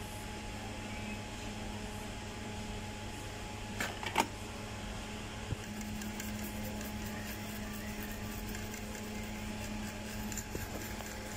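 A steady electrical hum runs throughout, with two sharp clicks about four seconds in. In the second half, faint rapid scratching comes from a brush scrubbing the cleaned BGA pads of the circuit board.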